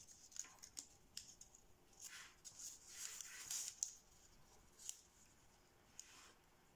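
Faint rustling and crinkling of thin kami origami paper as fingers open and flatten a fold, with scattered soft clicks and a denser patch of rustling a couple of seconds in.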